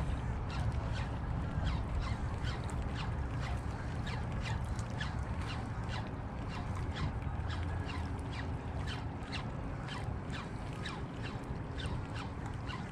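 Birds calling over and over in quick, short calls that drop in pitch, two or three a second, over a steady rumble of wind on the microphone.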